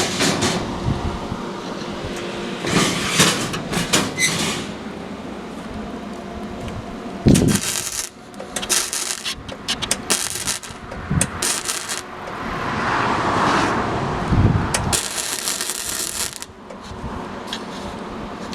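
Metal clanking and rattling, broken by several bursts of hiss a second or two long.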